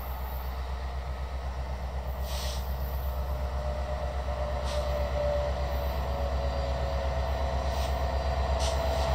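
Union Pacific diesel locomotive hauling a freight train, its engine rumbling steadily and growing louder as it approaches. A whine grows in over the second half.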